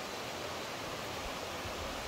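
Steady, even rushing of flowing water, with no breaks or distinct events.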